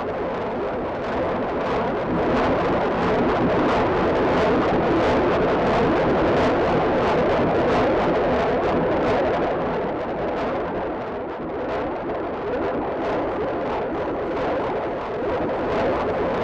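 A dense, distorted wash of sound with sharp hits repeating at a steady pulse, played from a vinyl record over loudspeakers.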